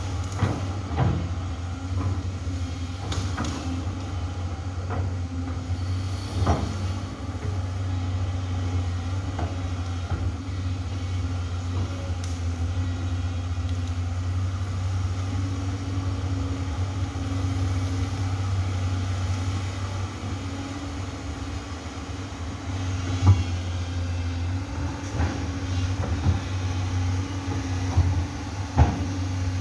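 Amphibious excavator's diesel engine running steadily under work, with a few sharp knocks, two of them louder near the end.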